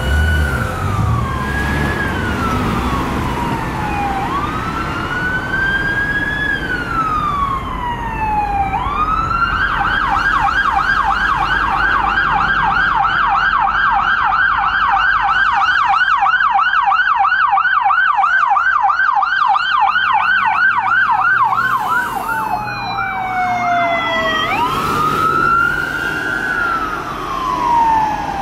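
An emergency vehicle's siren sounding a slow wail. About a third of the way in it switches to a rapid yelp, and it returns to the wail near the end, over a low rumble.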